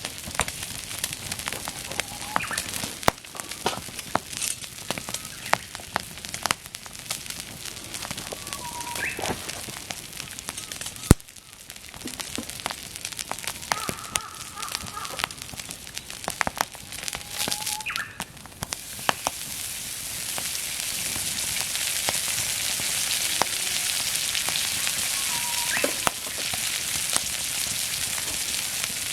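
Wood fire crackling and popping with many sharp snaps. About two-thirds of the way in, a steady high sizzling hiss builds up and holds: meat sizzling over the fire.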